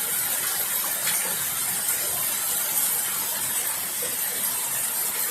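Heavy rain falling in a steady hiss, mixed with rainwater running and splashing out of a gutter pipe into a catchment barrel.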